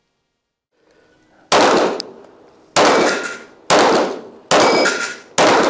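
Five pistol shots from an Arex Delta Gen 2 9 mm pistol, fired at a steady pace of about one a second, starting about a second and a half in. Struck steel plate targets ring after the shots.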